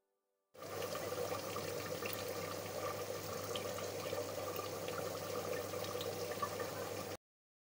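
Pot of curry liquid at a rolling boil: steady bubbling with scattered small pops. It starts abruptly about half a second in and cuts off abruptly near the end.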